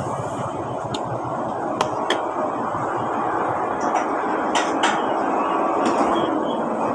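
Scattered sharp clinks of spoons against bowls and plates during a meal, about six over several seconds, over a steady background of road traffic.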